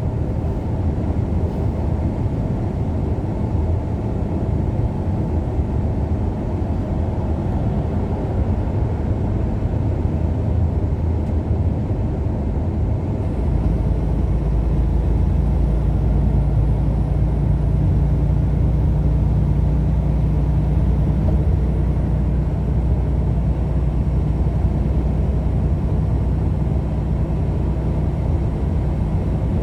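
Steady road and engine rumble of a moving vehicle on the road, with no speech. About 13 seconds in the rumble gets louder and a steady low hum sets in.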